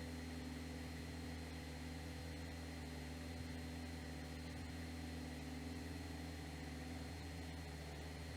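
Cessna 172S's four-cylinder Lycoming engine running steadily at constant power, heard as a low, even drone with hiss through the cockpit intercom.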